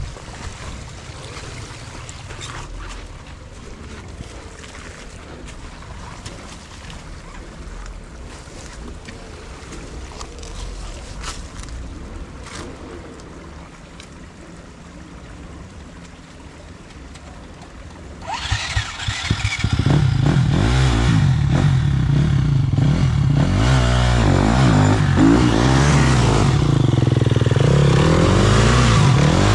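Off-road dirt bike engine. After a quieter stretch of low rumble and small clicks, it comes in loud at close range about two-thirds of the way through and revs repeatedly, its pitch rising and falling.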